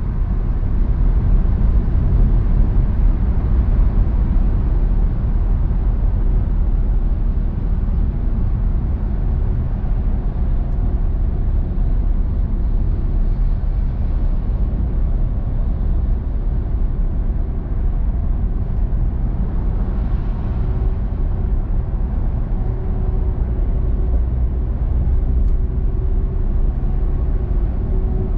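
Car cruising at highway speed: a steady low rumble of tyre and road noise with the engine underneath, and a faint steady hum joining in for the last few seconds.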